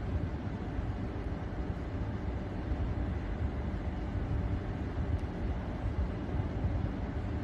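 Steady low outdoor rumble with no distinct sounds standing out.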